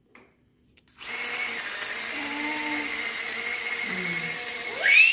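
Small handheld electric blender running steadily as it chops chillies, starting about a second in, with a steady whine over its motor. A child's short high-pitched call sounds over it near the end.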